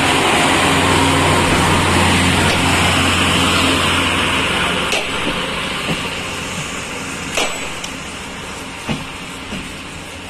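A diesel engine's steady low hum under a constant hiss, fading after about four seconds. Three or four sharp clicks follow in the second half.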